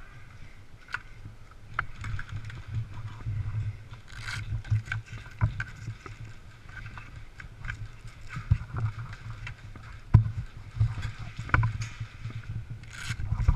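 Low rumbling handling noise on a body-worn camera microphone, with scattered sharp clicks and knocks as an airsoft rifle is reloaded by hand, its magazine and gear clattering.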